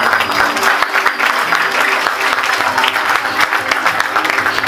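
Audience applauding, many hands clapping at once, with music playing underneath.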